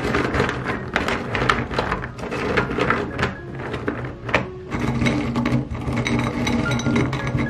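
Sugar-coated jelly candies rattling and clicking against a glass bowl as a hand stirs and scoops through them, with a quick run of crisp, crackly clicks.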